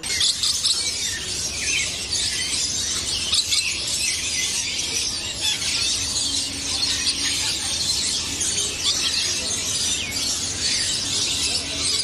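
Parrots screeching and chattering in a dense, high-pitched chorus, many birds calling over one another without a break.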